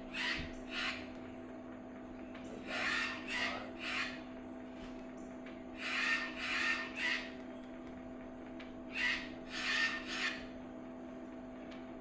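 Macaw squawks played by the augmented-reality app through a phone speaker: harsh calls in groups of three, repeating about every three seconds, over a steady hum. This is the macaw's morning call to its flock.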